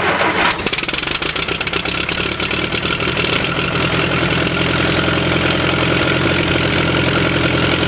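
Allis-Chalmers H3 bulldozer's four-cylinder gasoline engine running just after starting, on choke. About half a second in it settles into a steady, even run.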